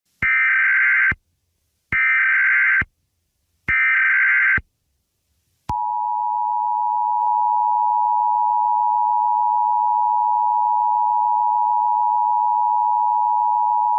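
Emergency Alert System (EAS) broadcast tones: three short data bursts of the SAME header, each under a second, about two seconds apart. They are followed by the EAS two-tone attention signal (853 and 960 Hz), a steady loud tone that starts about six seconds in and holds to the end.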